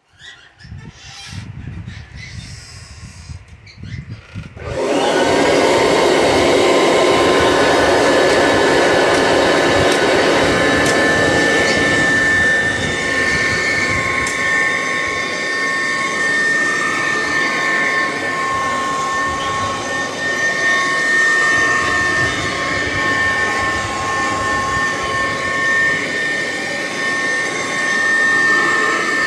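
1969 Kirby Classic 1-CR upright vacuum cleaner, the model with the metal fan, running over carpet. Quieter uneven sound for the first few seconds, then it jumps to a loud, steady run about five seconds in, with a steady high motor-and-fan whine.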